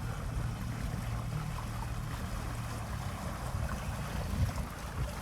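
Wind rumbling on the microphone over water lapping and trickling.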